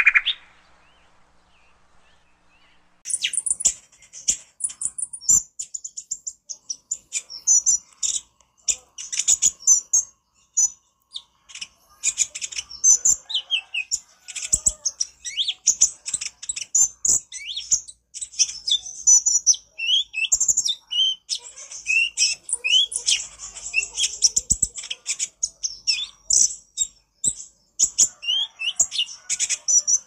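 Male van Hasselt's sunbird (kolibri ninja) singing: a rapid, incessant chatter of very high, thin twittering notes mixed with quick downward-sweeping chips and sharp ticks. It starts about three seconds in.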